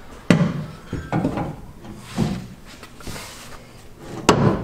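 About five clunks and knocks, the loudest near the end, as a Bilstein 5100 gas-charged monotube shock is forced by hand into its rear mount on a Ford F-150, pushing back against its gas pressure.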